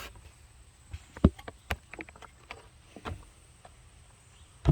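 Handling noise from a plush toy being walked along by hand: a few scattered soft knocks and rustles, the sharpest about a second in.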